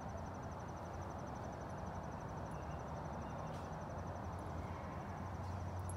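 Backyard ambience: an insect chirping in a fast, even, high-pitched pulse over a steady low hum and background noise.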